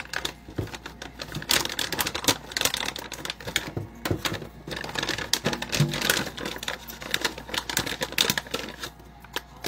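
Plastic pouch of powdered goat milk crinkling and rustling as it is handled and opened, a rapid, irregular run of crackles with brief lulls.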